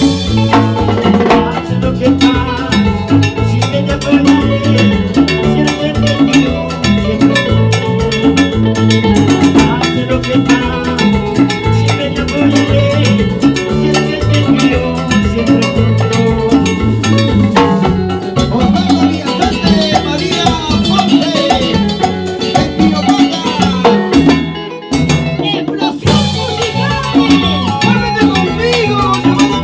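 Band playing salsa-style Latin dance music, with a moving bass line and percussion. There is a short break in the music about 25 seconds in, and then the band comes back in.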